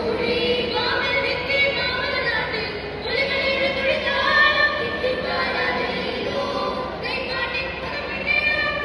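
A mixed group of young men and women singing an Onappattu, a Malayalam Onam song, together into handheld microphones.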